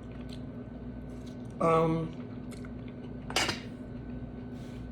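A single sharp clink of dishware about three and a half seconds in, with a few faint small clicks around it and a steady low hum underneath.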